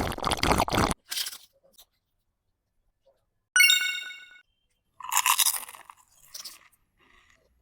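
Crunchy bites and chewing of food, with a bright ringing ding about three and a half seconds in.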